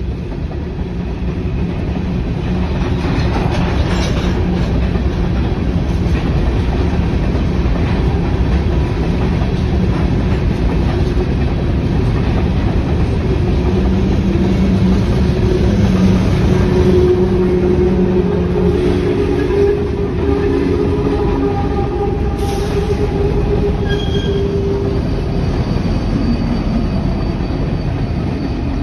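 A freight train of covered hopper cars rolling past over the rails: a steady, loud rumble of wheels with a couple of sharper clanks. About halfway through, squealing tones from the wheels on the rails come in for roughly ten seconds, then fade.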